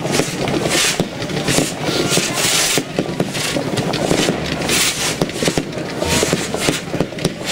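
Consumer fireworks battery firing green comet shots in quick succession, roughly two a second, each a hissing launch with sharp pops.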